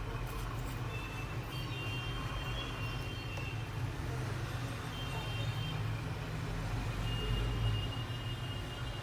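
Steady low rumble of road traffic, with faint thin high tones coming and going.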